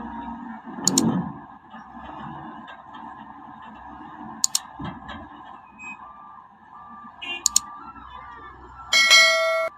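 Subscribe-button sound effects: a few sharp mouse clicks, the later ones as quick double clicks, then a loud bright notification bell ding near the end, over a low steady background.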